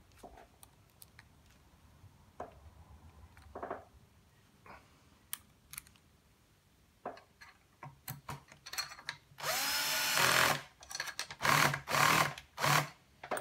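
Small cordless drill-driver, set to a low torque setting, driving a screw through a thin aluminium bracket into a power supply's metal case. A few light handling clicks come first; then the drill runs for about a second and follows with several short bursts near the end.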